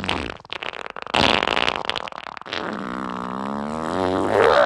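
Cartoon fart sound effect: one long, drawn-out fart, ragged and noisy at first, then turning into a wavering pitched tone that grows louder toward the end, as the character soils his pants.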